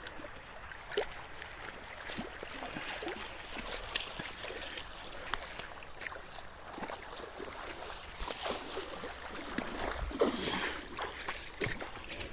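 River water flowing in a steady rush, with scattered light clicks and knocks throughout.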